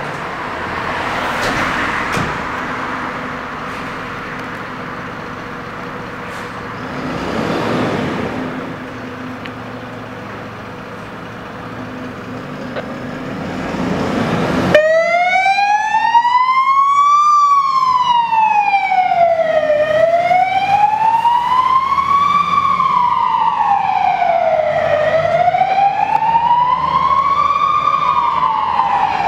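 Renault Midlum fire engine's siren switched on about halfway through, wailing up and down, one rise and fall about every five seconds. Before it, engine and road noise swells twice.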